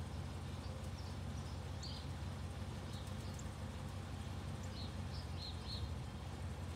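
Birds giving short, high chirps, several in a quick run about five seconds in, over a steady low background rumble.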